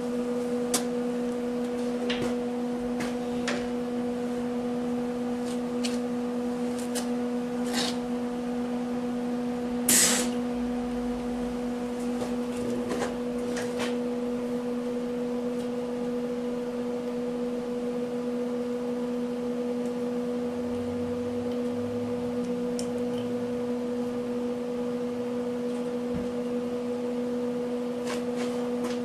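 Steady electrical hum made of a few fixed tones, with scattered faint clicks and one short, louder burst of noise about ten seconds in.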